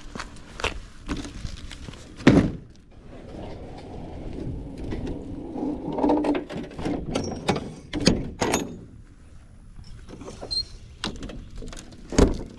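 Enclosed trailer's rear ramp door being raised shut and latched: metal clanks and knocks, the loudest about two seconds in, a scraping rattle for several seconds as the door swings up, then more knocks and a heavy thunk near the end as the latch hardware closes.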